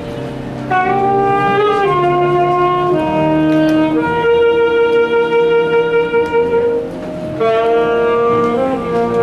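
Music: a slow melody of long held notes on a wind instrument, one note held for about three seconds in the middle.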